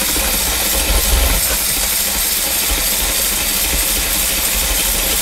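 Cordless power driver running steadily on a long socket extension, spinning the old kitchen faucet's 9/16-inch mounting nut off its threaded stud.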